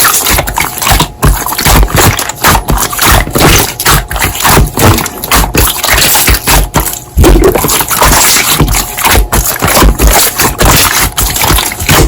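Slime being squished and worked, giving a loud, dense run of crackles and pops.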